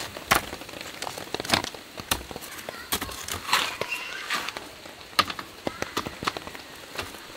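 Canvas rustling and sharp wooden clicks and knocks as camp furniture is set up. A canvas seat is worked onto a wooden folding chair frame, then a wooden folding table is unfolded and its top set in place.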